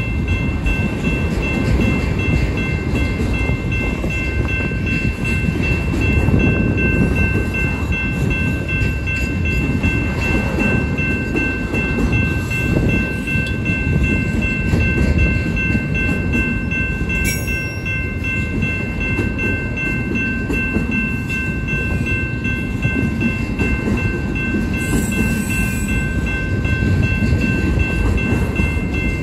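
Autorack cars of a long freight train rolling past close by: a steady, loud rumble of wheels on the rails, with a thin steady high tone sounding over it.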